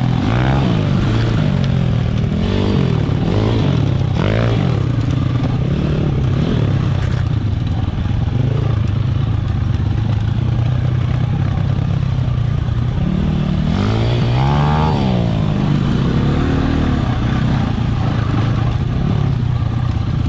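Husqvarna 300 two-stroke dirt bike engine running under the rider, its revs rising and falling with the throttle over rough single track, with a sharp rev-up and drop about two-thirds of the way in.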